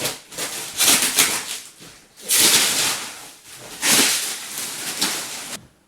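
Motorcycle tyre being handled and worked off its rim: a series of about four loud scraping, rubbing noises, each lasting around half a second to a second.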